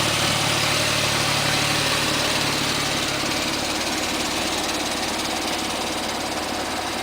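Porsche engine running steadily at a low, even speed; its low hum fades about halfway through and the sound eases off slightly toward the end.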